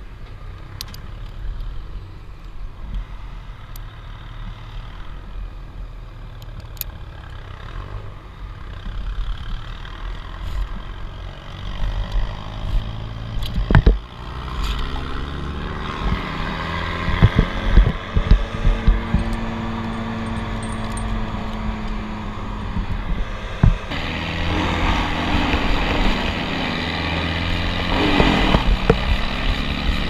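Steady low rumble of vehicle engines from the road below, with the pitch of one rising and falling as it pulls away, under scattered clicks and rustles of climbing rope and gear. Near the end a handsaw rasps through an ash branch.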